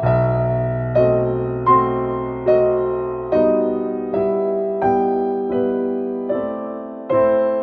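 Background piano music, a slow, gentle melody of single notes that ring and fade, one about every three-quarters of a second.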